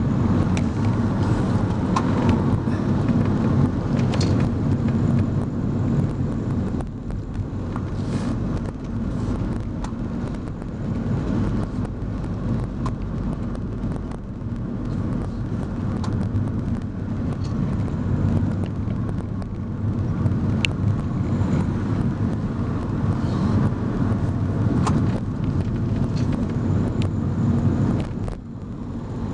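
A car driving along a winding road, heard from inside the cabin: a steady rumble of engine and tyre noise, dipping briefly near the end.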